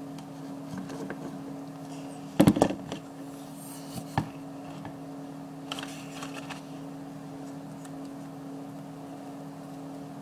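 Handling noise from craft materials at a table: a quick cluster of sharp knocks and clatter about two and a half seconds in, a single click a little later, and some paper rustling around six seconds, over a steady low hum.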